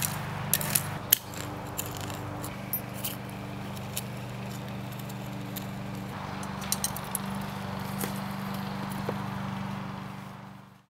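Short-handled steel V hoe scraping and chopping through loose garden soil, with scattered sharp clicks as the blade strikes grit and small stones, over a steady low mechanical hum. The sound fades out near the end.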